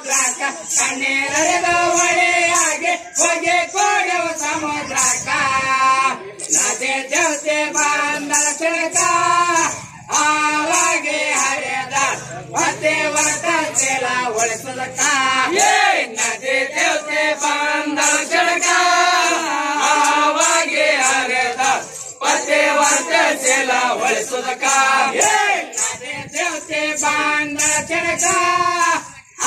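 Riwayat pada, a Kannada folk devotional song, sung by a group of voices in long, wavering, high-pitched phrases over a fast, regular beat of sharp strokes.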